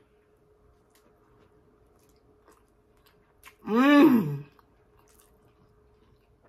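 A person eating a chicken sandwich dipped in ranch: faint chewing, and about halfway through one drawn-out vocal sound of enjoyment whose pitch rises and then falls.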